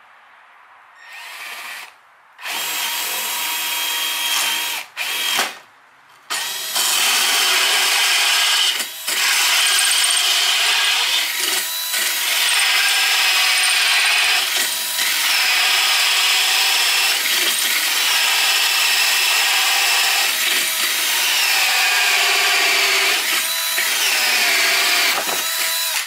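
Cordless drill running a hole saw into a wooden block. A couple of short starts come first, then a long continuous cut from about six seconds in, the motor's pitch sagging and recovering as it loads up in the wood.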